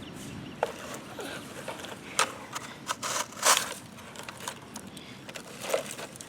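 Irregular gritty scrapes and clicks of a toy digger working in dirt and gravel, with the longest, loudest scrape about three and a half seconds in.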